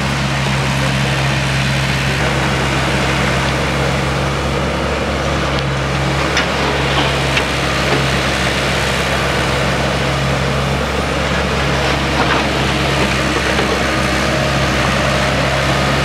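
Diesel engine of a working tracked excavator running at steady revs, a constant low hum.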